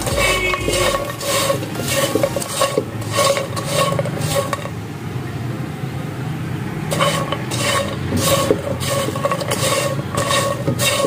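Silicone spatula stirring and scraping bread cubes around a nonstick kadhai as they fry in a little oil. The strokes come about two to three a second, with a pause of about two seconds midway.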